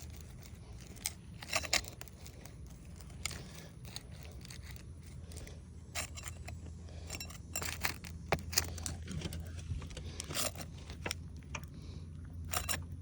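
Putty knife being worked under roof shingles to break their seal: irregular short scrapes and clicks, over a steady low hum.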